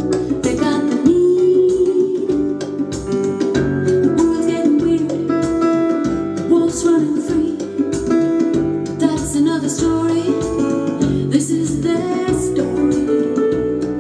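Music: a song with guitar over a steady beat, with a held melody line.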